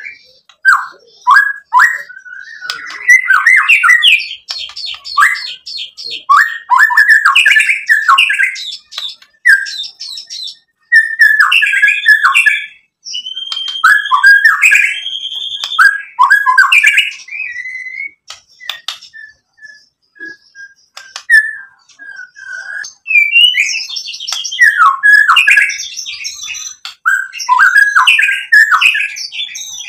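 White-rumped shama singing a loud, varied song of rapid whistled phrases. About two-thirds of the way through the song thins to a few sparse single notes for several seconds, then the full song picks up again.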